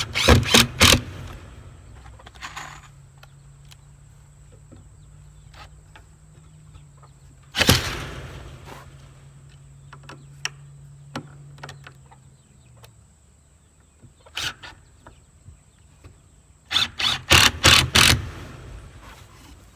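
Bursts of sharp knocks, four or five in quick succession at the start and again near the end, with a single louder crash about eight seconds in and a few lone clicks between. A faint, steady low hum runs underneath for several seconds in the middle.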